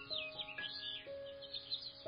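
Background music of held notes changing pitch every half second or so, with quick high bird chirps running over it.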